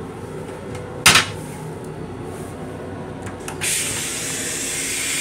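M7 railcar toilet being flushed: a sharp clunk about a second in, then from about three and a half seconds a loud steady hissing rush of flush water and air into the stainless steel bowl.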